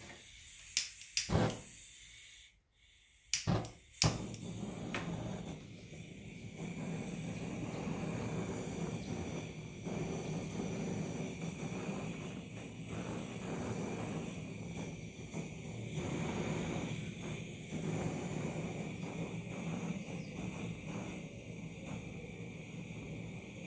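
A few sharp knocks, then steady rough scraping of a steel wire brush worked over teak wood, cleaning out the inside of the piece.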